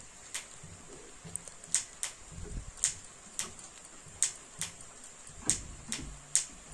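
Thick okra-and-potato curry simmering down in a kadai, with about a dozen irregular pops as thick bubbles burst in the reducing gravy. A faint steady high whine runs underneath.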